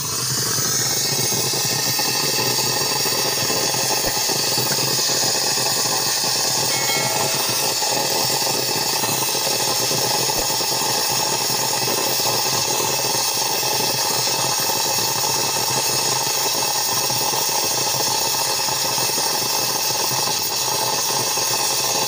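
Brass gas brazing torch burning with a steady hiss while its flame heats a leak hole in a refrigerator freezer's evaporator, melting silver brazing rod to seal it.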